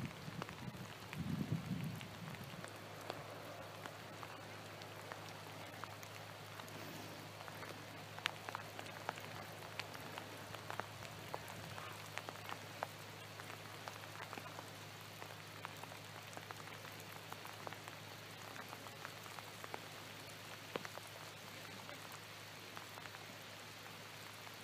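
Light rain pattering, with scattered drops ticking irregularly close to the microphone over a faint steady low hum. A brief low rumble about a second in.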